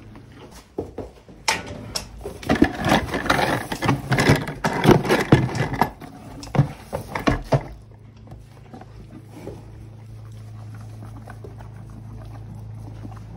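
Plastic feed bucket of hard horse feed knocking and rattling against the stable manger for about six seconds as the horse shoves it in. The clatter stops near the two-thirds mark, leaving a low steady hum and faint crunching as the horse eats from the manger.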